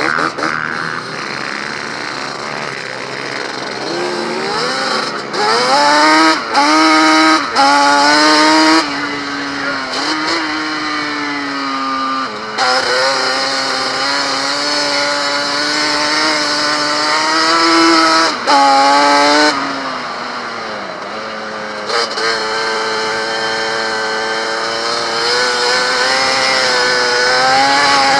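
Racing quad (ATV) engine heard from on board, running hard on a dirt track: its pitch climbs under throttle, then drops sharply several times at gear changes or when easing off for corners, over a steady rush of wind.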